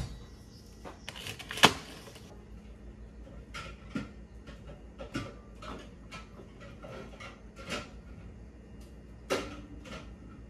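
Groceries being put away into an open refrigerator: scattered knocks, clunks and rustles of items and plastic grocery bags being handled, with a louder knock about a second and a half in and another near the end.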